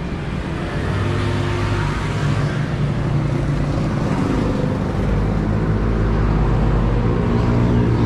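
Road traffic: a motor vehicle's engine running with a steady low hum over a haze of tyre and street noise, growing louder toward the end.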